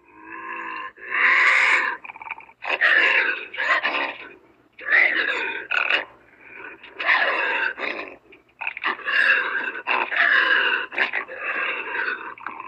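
Bobcat calling: a run of about nine loud, rough calls, each up to about a second and a half long, with short gaps between them.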